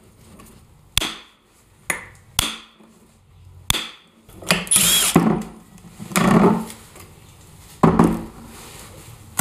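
Hammer knocking on a Dana 60 differential carrier to drive the ring gear off: four sharp separate metal knocks in the first four seconds, then louder, longer metal clanks with some ringing as the ring gear comes free and is handled.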